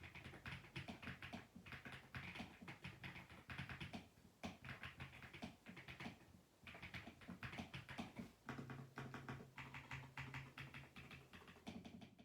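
Typing on a mechanical keyboard fitted with PBT Cherry-profile keycaps: a fast run of key clacks with a short pause about six and a half seconds in.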